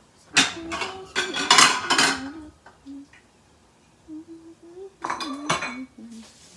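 Dishes and cutlery clattering as a ceramic bowl and utensils are picked up and set down on a kitchen counter, in a long run of clinks and knocks starting about half a second in and a shorter one about five seconds in.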